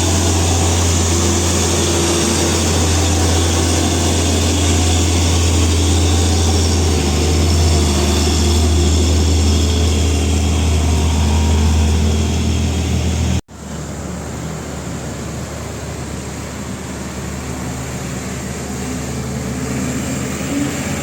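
Heavy vehicle's diesel engine straining up a steep climb, a loud steady drone. About thirteen seconds in it cuts off abruptly to quieter passing-traffic noise.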